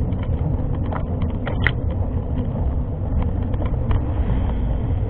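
Steady low wind rumble on the microphone with scattered short clicks and rattles, typical of a camera on a mountain bike riding a trail; one sharper click about a second and a half in.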